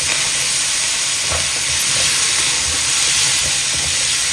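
Sliced pork and Chinese kale sizzling as they are stir-fried in a nonstick wok, a steady frying hiss with a few faint knocks and scrapes of the spatula as it turns the food.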